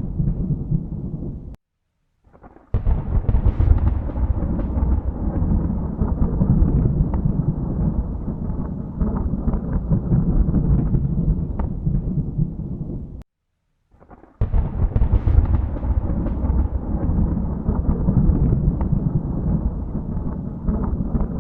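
Rolling thunder, deep and rumbling, with no rain. It drops to dead silence twice for about a second. Each time it starts again with a sharp crack that runs on into long rumbling.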